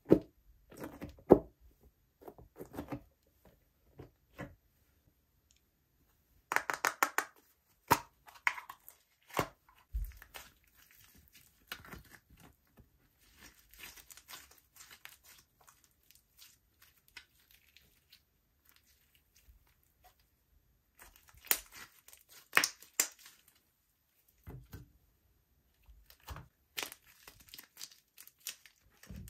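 Slime being pressed, stretched and folded by hand, giving irregular clusters of sticky crackles and popping clicks with quieter stretches between.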